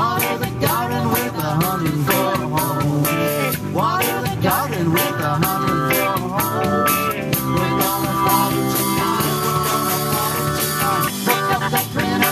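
Live band playing an upbeat rock song, with guitar and a steady drum beat.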